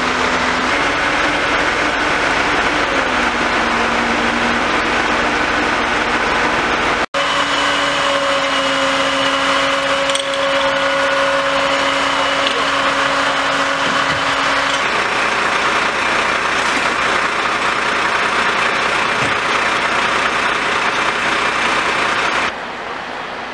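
Fire engines running steadily, a loud even engine noise with a droning hum that shifts in pitch a few times. The sound cuts out for an instant about seven seconds in and turns quieter near the end.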